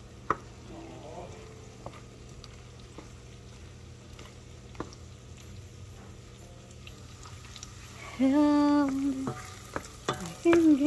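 Bitter melon stir-fry sizzling faintly in a frying pan as a wooden spatula stirs it, with a few light taps and scrapes. About eight seconds in, a voice sings a loud held note, and another starts right at the end.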